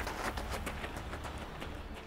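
Quick running footsteps on a gravel path, a few steps a second, growing fainter as the runner moves away.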